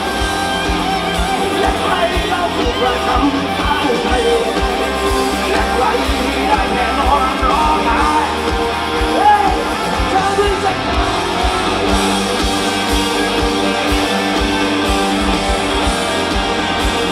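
Live rock band playing loud: electric guitars, bass and drums with vocals over them, heard through the stage PA from the audience.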